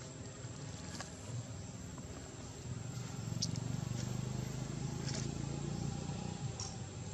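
An engine running, louder from about three seconds in, with a few faint clicks over it.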